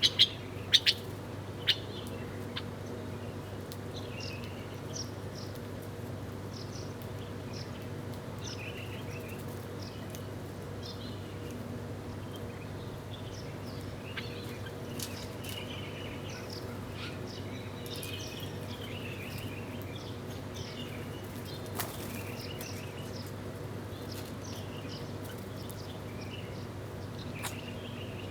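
Small birds chirping: short high chirps scattered throughout, with a few louder, sharper chirps in the first two seconds, over a steady low background hum.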